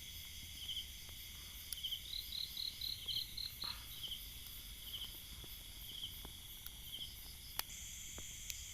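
Night insects calling together: crickets giving short chirps about once a second over a steady high-pitched buzzing chorus, with a second insect's quicker pulsed call for a couple of seconds. A few faint sharp clicks are heard, one louder near the end.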